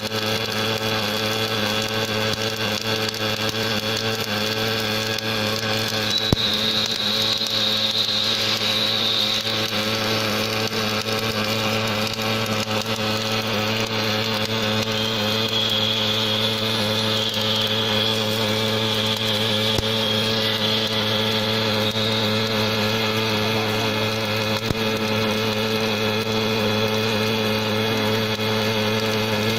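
Automatic welding machine for hydraulic cylinders running: a steady electrical hum with a higher whine that comes in about six seconds in and again from about fifteen to twenty-two seconds.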